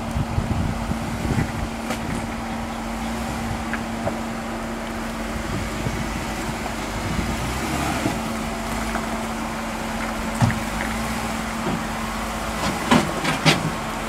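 Jeep Wrangler Unlimited running at low revs as it crawls over rock, with tyres grinding over rock and gravel. Several sharp knocks come in the last few seconds as it climbs the ledge.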